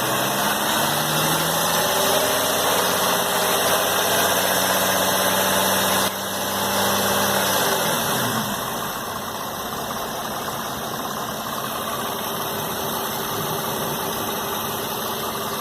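2008 Infiniti G35's 3.5-litre V6 revved up in the first second, held at a steady higher speed for several seconds, then dropped back to idle about eight seconds in and idled quieter. It has an engine rattle that the owner suspects is lifter noise and that a shop calls normal.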